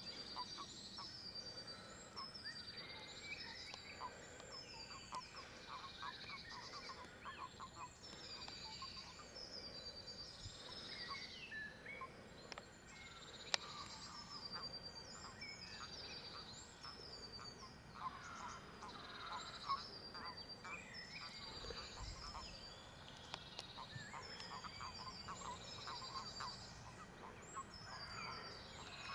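Breeding chorus of toads in the pond: many short clucking calls in quick runs, with high falling chirps repeated over it.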